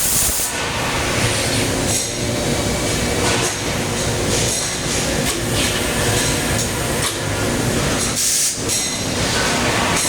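Robotic MIG welding arc running, a loud steady crackle with a few brief breaks.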